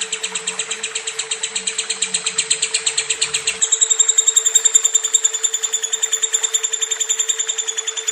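Lovebird chattering in one long unbroken trill of rapid, high notes, about eight to ten a second, shifting to a slightly different pitch about three and a half seconds in. A steady low hum runs underneath.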